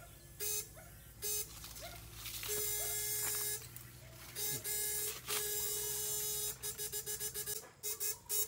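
Homemade backpack electrofishing shocker buzzing as it is switched on and off to stun eels in the water: a few short bursts, two longer buzzes of about a second each, then a rapid string of short pulses near the end.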